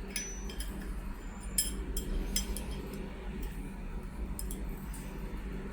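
Scattered light metallic clinks and clicks as the crimping machine's steel rod and its screw are handled and the screw is loosened.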